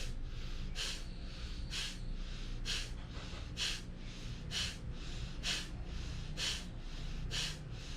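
Kapalbhati breathing: short, forceful exhalations through the nose, about one a second, each inhalation left passive. The bursts are even in rhythm and sit over a low steady hum.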